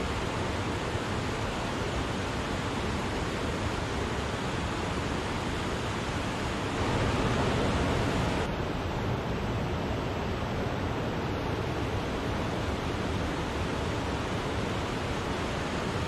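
Waterfall rushing: a steady, dense roar of falling water that swells briefly about seven seconds in.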